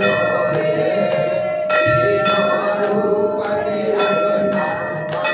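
Group singing of a Hindu aarti with hand clapping and a temple bell ringing. The bell's tone hangs on between strikes, and there is a fresh strike about two seconds in.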